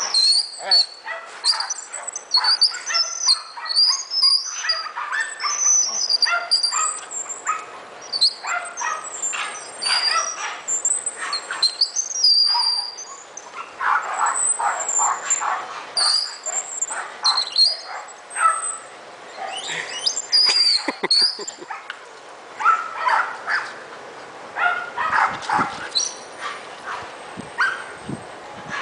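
Birds chirping throughout, over short repeated sounds from a bull terrier as it hangs by its jaws from a rope tug toy.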